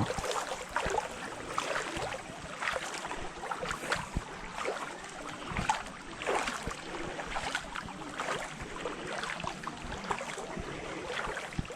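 Shallow river water splashing and rippling, with irregular small splashes throughout.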